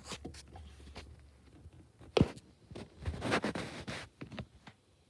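Handling noises in a small room: scattered clicks, a sharp knock about two seconds in, then about a second of rustling or scraping.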